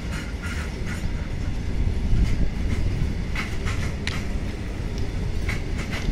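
Loaded freight train of covered boxcar wagons rolling past: a steady low rumble of wheels on rail, with irregular sharp clicks and clanks from the wagons' wheels.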